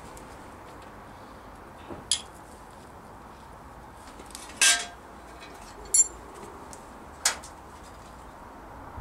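Sharp metallic clinks of a steel ring spanner on a small brass drain tap being screwed into a V8 engine block: four separate clinks, the one about halfway through ringing briefly, another a quick rattle of ticks.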